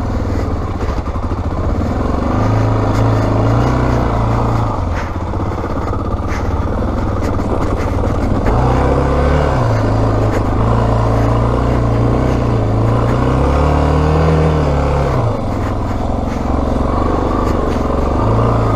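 Yamaha XT600E's single-cylinder four-stroke engine pulling the motorcycle along, its revs climbing and dropping several times with the throttle.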